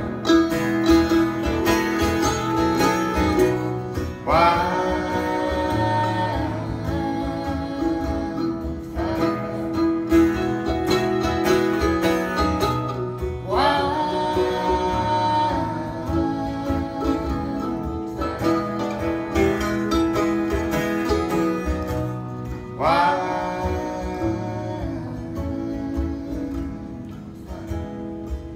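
Live acoustic music: a steadily played acoustic guitar with a plucked mandolin carrying the melody in an instrumental passage, a new phrase starting every four or five seconds.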